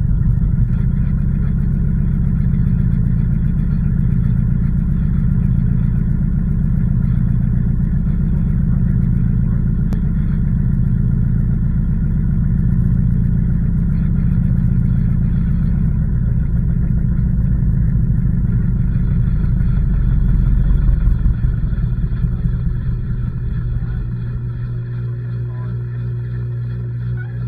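LG washing machine running, heard from inside its drum as a loud, steady low rumble with a slow pulsing. It drops in level about 22 seconds in, leaving a steadier low hum.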